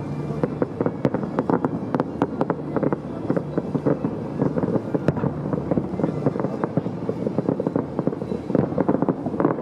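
Fireworks going off in a dense, continuous crackle of many short pops, several a second, at a steady level.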